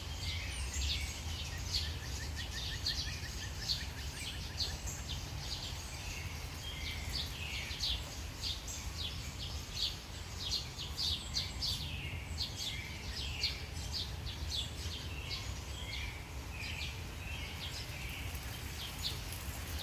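Birds chirping repeatedly, with a short rapid trill about two seconds in, over a steady low hum.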